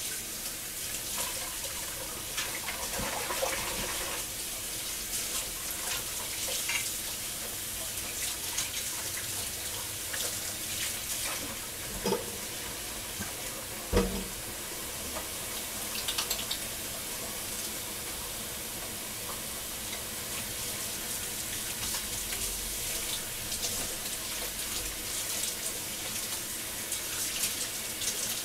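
Kitchen tap running steadily into a sink while hands are washed under it, with a couple of knocks against the sink about halfway through.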